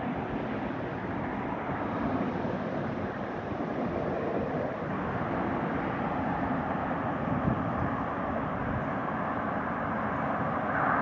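Wind buffeting the microphone: a steady rushing noise with no distinct events.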